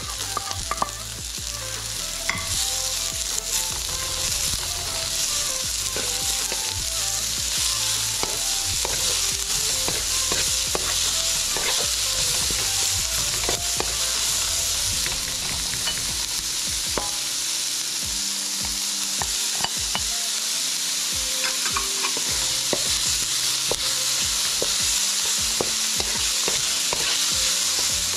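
Chopped red onion and minced garlic sizzling steadily in hot oil in a wide metal pan, stirred with a wooden spatula that clicks and scrapes against the pan.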